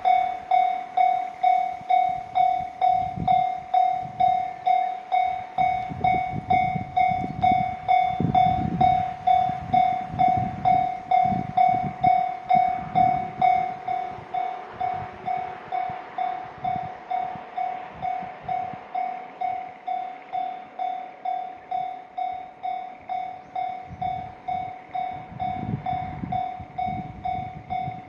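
Japanese railroad crossing alarm ringing its repeated 'kan-kan' electronic bell, about two strikes a second, over the low rumble of a train passing through the crossing.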